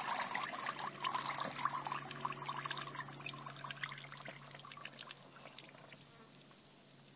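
Water pouring and trickling from a small plastic cup over a baby's head into a shallow bath, with light drips and patters that thin out after the first few seconds. A steady high hiss runs underneath.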